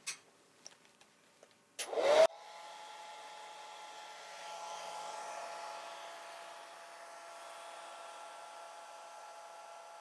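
Handheld hair dryer switched on about two seconds in with a short loud rising whine, then blowing steadily, a rush of air with a motor whine, to dry a wet watercolour wash. A few faint clicks of handling come before it starts.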